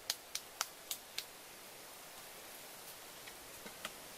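A quick run of five sharp clicks or taps, about four a second, from objects being handled, then a few fainter clicks near the end, over a faint outdoor rustle.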